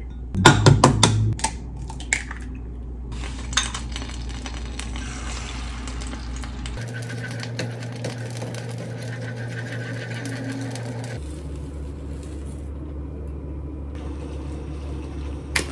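Kitchen cooking sounds: a cluster of sharp clinks in the first second or so as eggs are cracked against and dropped into a glass cup, then a steady low background while beaten eggs are stirred with chopsticks in a frying pan on the stove, and a single click near the end.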